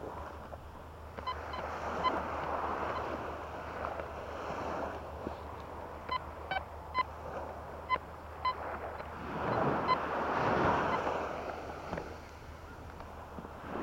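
Quest Q40 metal detector giving a series of short beeps as its coil sweeps over a target: a few near the start and a longer run in the middle. Waves wash on the shore behind, swelling louder just before the end.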